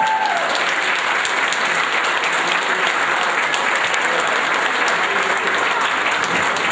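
A large standing audience applauding, many hands clapping in a dense, steady patter.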